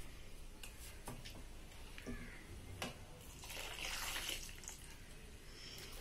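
Thick milk custard being poured from a steel pot into a steel bowl of cut fruit, with a soft pouring and splashing that swells about four seconds in. A few light clicks of a spoon against the metal come in between.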